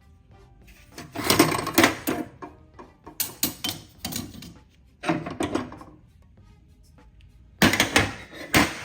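Old metal hand tools clattering and clinking as they are picked up, shifted and set down, in four short bursts of handling.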